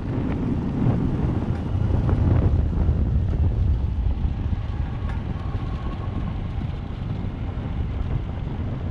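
Vespa scooter's engine running while riding, mixed with wind buffeting the microphone in a steady low rumble.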